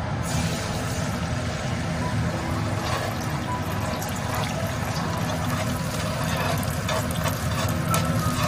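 Beaten eggs sizzling in hot oil in a stainless wok as they are scrambled with chopsticks: a steady sizzle with scattered small crackles.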